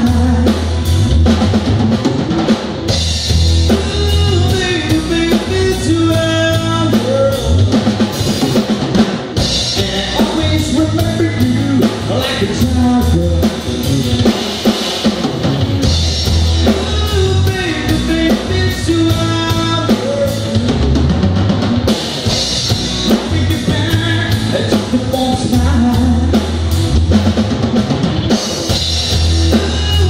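Live rock band playing a song: drum kit with bass drum and snare, electric bass and electric guitar, with a sung vocal line.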